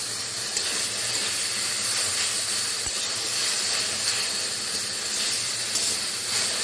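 Jujubes frying in hot oil in a wok, sizzling with a steady hiss as a spatula stirs them.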